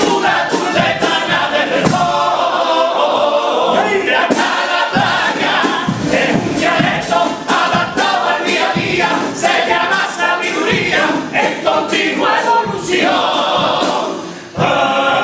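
Carnival comparsa's male choir singing a pasodoble in several voices, over a steady beat. The singing drops away briefly near the end, then the next phrase comes in.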